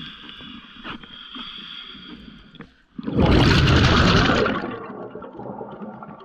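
Underwater, a sudden loud rush of bubbles past the camera about three seconds in, holding for a second and a half and then fading. Before it, a faint steady hum with a few soft clicks.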